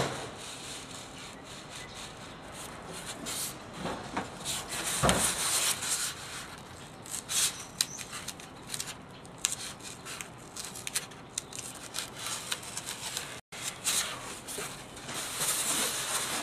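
Razor blade drawn through a flat Styrofoam sheet resting on a board: an irregular scratchy rasping made of many short strokes as the blade follows a traced line.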